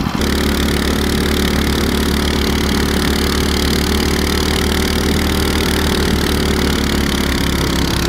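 Small engine of a compact snowmobile running steadily at an even speed while driving along a snowy track.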